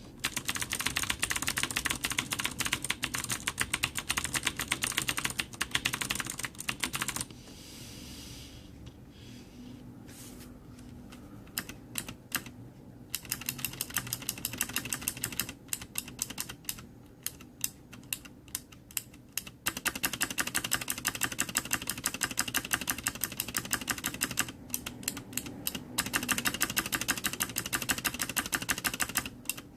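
Clicky Cherry MX Blue switches on a Ducky Zero Zone mechanical keyboard, keys clacking in fast dense runs. The clicking stops for about four seconds starting around seven seconds in, then comes back as a few single presses before fast runs resume, with brief breaks.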